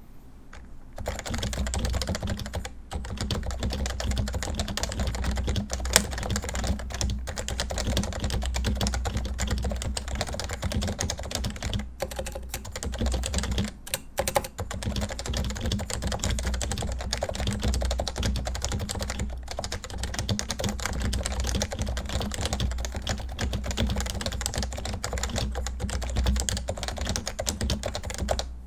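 Continuous fast typing on a stock Topre Realforce R2 keyboard with 45 g domes, mounted in a Norbaforce Mk II case: a rapid, steady stream of key presses, with two short pauses about 12 and 14 seconds in.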